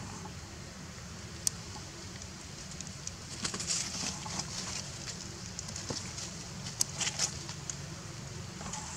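Outdoor ambience: a steady low wind rumble on the microphone, with scattered light clicks and crackles, a sharp one about a second and a half in and clusters around three and a half and seven seconds in.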